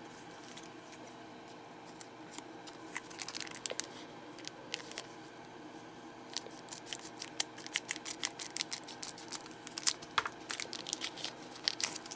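Small scissors snipping open a trading-card booster pack wrapper: a run of short, sharp snips and clicks, a few early on and many more in quick succession in the second half.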